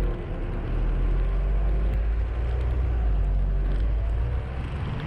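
Mitsubishi L200's 2.5 diesel engine running under light load as the pickup pulls away slowly over snow, a steady low rumble that eases off slightly near the end.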